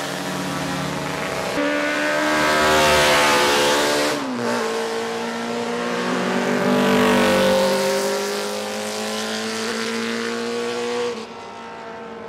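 Classic racing motorcycles passing at speed one after another, their engines revving high, with a sharp drop in pitch about four seconds in. The engine sound swells twice as bikes go by.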